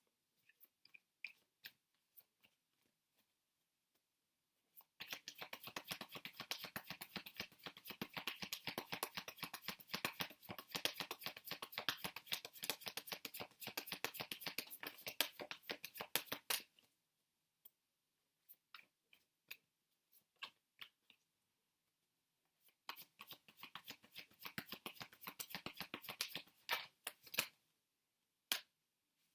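A deck of tarot cards being shuffled by hand: a long run of rapid card flicks lasting about twelve seconds, a pause with a few stray clicks, then a second, shorter bout of shuffling.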